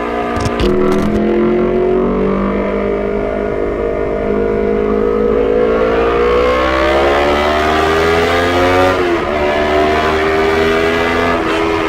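2017 Honda CBR250RR's parallel-twin engine through a Proliner TR-1 Short full-system exhaust, running under way. Its pitch climbs steadily for a few seconds, then drops sharply about nine seconds in as a gear is shifted, and climbs again.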